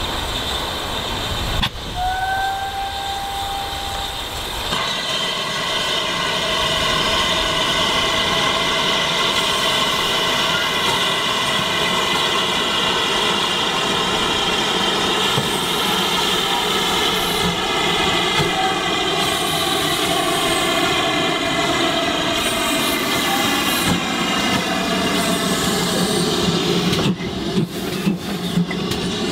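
Steam railway locomotive with a short whistle about two seconds in, then a long, steady train sound made of many tones that slowly sink in pitch, with a few sharp clicks near the end.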